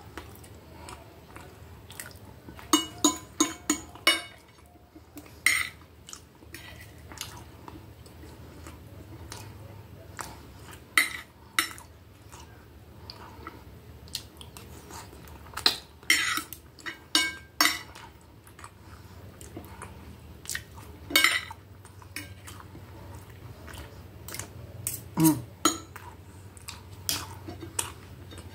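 Fork and knife clinking and scraping against a plate in scattered bursts of sharp clicks while spaghetti is twirled and eaten, with chewing between. A low steady hum runs underneath.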